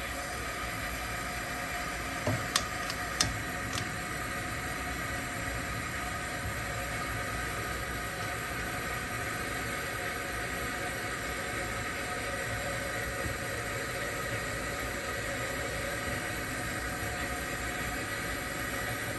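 Vintage Preway P4521 camp stove's pressurized fuel burner running with a steady hiss. A few sharp clicks come about two to four seconds in.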